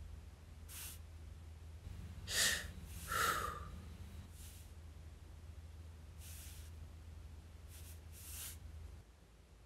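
Short breathy vocal sounds, sniffs and gasps voiced by a person, about seven in all, the two loudest about two and a half and three seconds in. A low steady hum runs beneath them and stops near the end.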